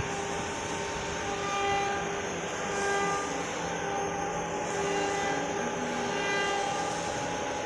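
CNC router running, its motors whining in several held tones that shift to other pitches every second or so over a steady machine hum.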